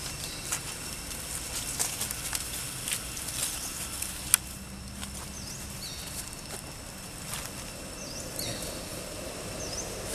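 Dry leaves crackling and rustling in irregular little clicks, densest in the first few seconds with one sharp snap a little over four seconds in, and a few short, faint, high chirps in the second half.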